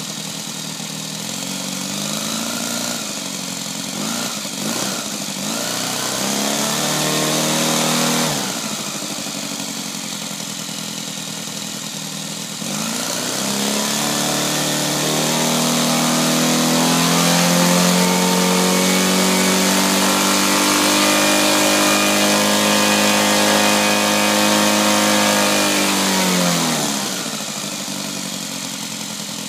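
Saito 200 twin-cylinder four-stroke model aircraft engine on its first run. It idles, is revved up for several seconds, and drops back to idle. Then it is run up to high throttle and held there for about twelve seconds before falling back to idle.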